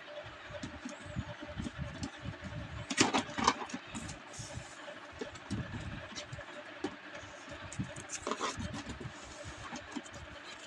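Cardboard carton of a dinner set being opened by hand: flaps pulled back, packaging paper handled, with irregular soft knocks and rubbing. Two louder rasping bursts of cardboard scraping or tearing, about three seconds in and again about eight seconds in.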